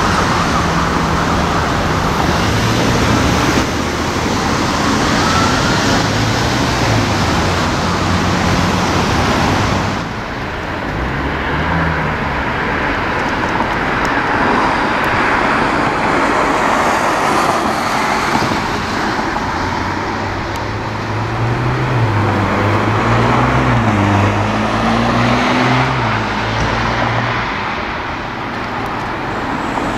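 Steady road traffic noise with the low hum of a large idling diesel engine that wavers in pitch.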